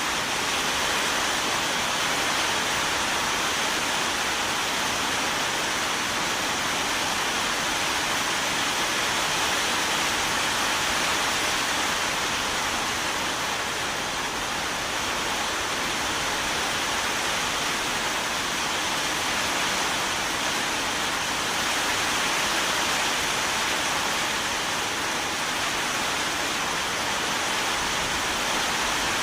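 Steady heavy rain: a dense, even hiss with no distinct drops, thunder or other events.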